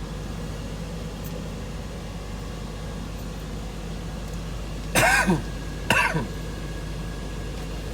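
A person coughing twice, about a second apart, over a steady low hum.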